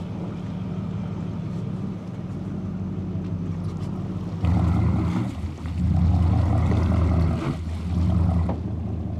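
Boat's motor running steadily under way at slow towing speed, with water rushing along the hull. About four and a half seconds in it suddenly gets louder and fuller, with more water and wind noise, then settles back near the end.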